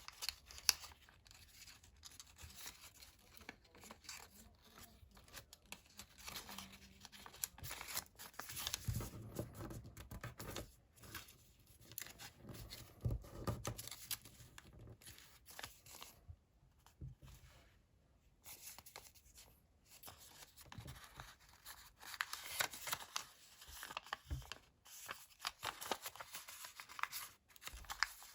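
Sheets of colored origami paper being folded and creased by hand, rustling and crinkling in uneven spells, with a brief lull about two-thirds of the way through.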